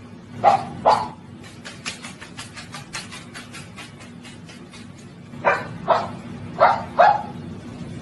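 Barking in short pairs: one pair about half a second in, then two more pairs between five and seven seconds, with a quick run of light taps in between.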